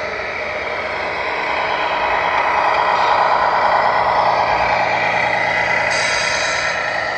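Sound unit of a 1/14 scale RC tractor truck playing a diesel truck engine sound that grows louder in the middle. Near the end comes a short hiss like an air-brake release.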